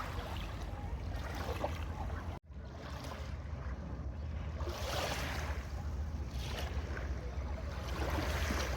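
Wind rumbling on the microphone over a wash of water or wind noise that swells and fades in gusts. The sound cuts out for an instant about two and a half seconds in.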